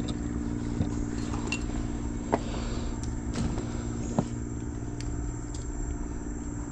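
An engine running steadily with a constant hum and a low rumble, with a few light clicks over it.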